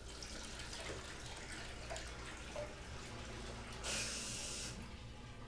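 Water running from a bath tap into a partly filled bathtub. About four seconds in, a brief louder hiss of water lasting under a second comes as the tap handle is turned.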